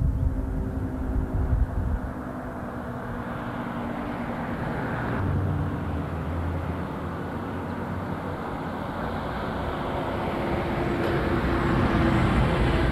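Outdoor traffic noise, with vehicles passing and a low rumble in the first couple of seconds.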